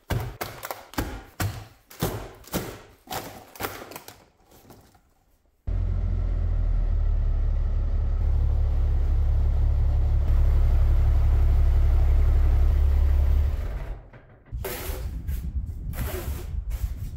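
Plastic packs of screw-in tire studs clattering onto a wooden workbench in a quick run of knocks. About six seconds in, a tractor engine starts up with a sudden, steady low rumble that fades after about eight seconds. Near the end, a snow shovel scrapes repeatedly across a concrete floor.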